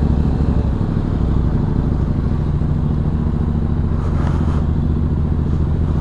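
Benelli TRK 502X's parallel-twin engine idling steadily.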